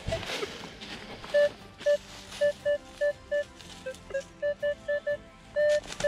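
Minelab Equinox 800 metal detector beeping as its coil is swept over a target: about a dozen short mid-pitched beeps, two slightly lower ones a little past the middle, and one longer tone near the end. A brief rustle of dry leaves comes at the start.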